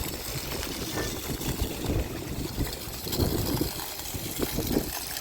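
Rain falling steadily, with irregular low thuds and rumbling underneath.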